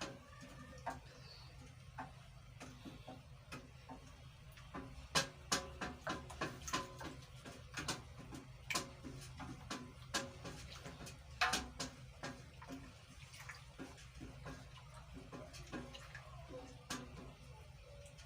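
Hair conditioner mixture of melted oils and waxes in warm water being stirred in one direction, the stirrer knocking against the side of the container in irregular light clicks, roughly one or two a second.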